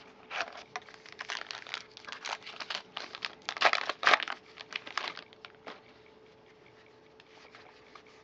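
Paper-and-foil trading card pack wrapper being torn open and crinkled by hand, in a quick run of crackles that is loudest about halfway through. Near the end it gives way to faint light rustles of the cards being handled.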